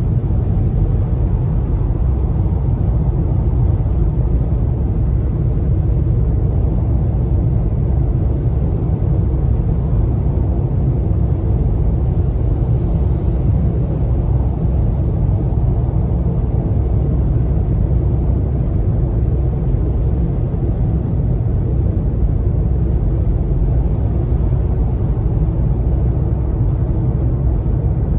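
Steady low road rumble of a car cruising at highway speed, heard from inside the cabin.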